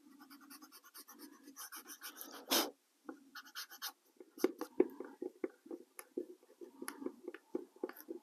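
Pencil eraser rubbing out a pencil mark on a fascia panel in quick back-and-forth strokes, followed from about four seconds in by light clicks and taps as the faceplate is handled against the panel.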